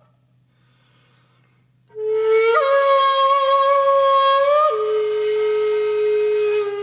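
Background music: a breathy, flute-like wind instrument enters after about two seconds of near quiet. It plays long held notes, stepping up once and then down to a lower note.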